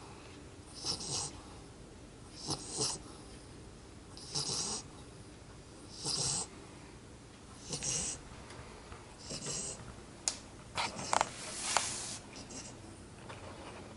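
Ten-week-old yellow Labrador Retriever puppy snoring in its sleep, one breathy snore about every second and a half to two seconds. After about ten seconds the rhythm breaks into a few sharp clicks and a louder rustling burst.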